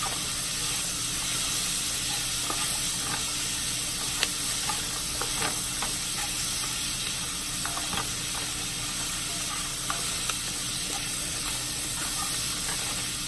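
Sausage, bell peppers and onions sizzling as they fry in a pot: a steady frying hiss with scattered small pops.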